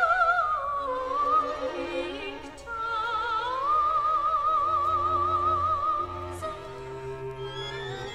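Classical soprano singing with wide vibrato over a small string ensemble, holding one long note in the middle. Near the end the voice drops out and the strings carry on more softly.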